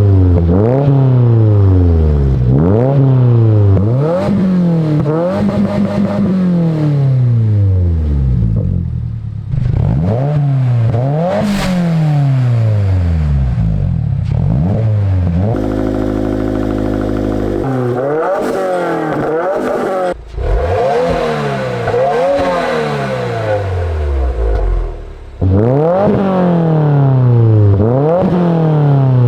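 Subaru WRX (VB) 2.4-litre turbocharged flat-four, breathing through a Tomei titanium exhaust with no silencer insert, revved repeatedly in quick blips that rise and fall in pitch. One rev is held steady for about two seconds midway before the blips resume.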